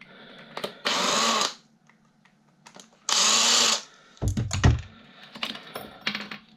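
Cordless drill-driver whirring in two short bursts about two seconds apart, running screws out of a desk fan motor housing. After them come several loud knocks and clatters of metal parts being handled.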